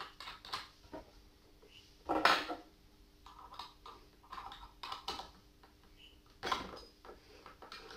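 Metallic clicks and rattles of a keyed drill chuck being handled and fitted onto a drill mounted in a wooden drill press. Two louder scraping sounds stand out, about two seconds in and again near the end.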